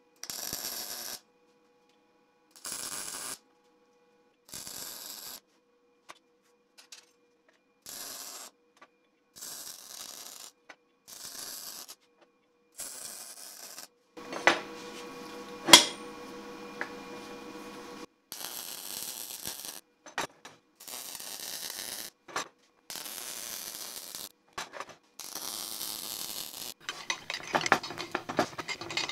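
MIG welding arc crackling and sputtering in a series of separate short bursts, first brief tacks and then longer runs of bead. There is one sharp crack partway through and a run of quick scratchy clicks near the end.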